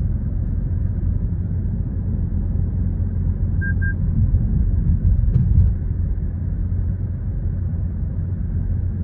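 Cabin noise of a 2025 Toyota Corolla Cross hybrid cruising at about 60 km/h with its petrol engine driving, heard inside a cabin fitted with full sound-deadening: a steady low road and engine rumble. Two short high beeps sound about four seconds in.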